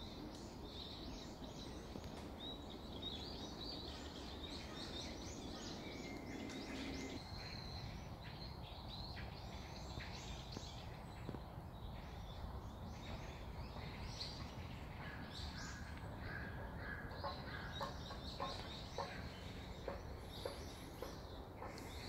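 Wild songbirds chirping and calling, many short high notes through a steady background hush of woodland ambience.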